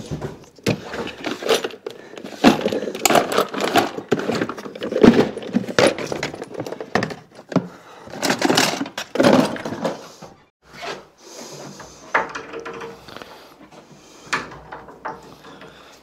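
Hand tools worked against a wooden door: irregular clinks, scrapes and knocks of pliers gripping and twisting out a soft screw whose head has rounded out. The sounds are busiest in the first ten seconds, then sparser.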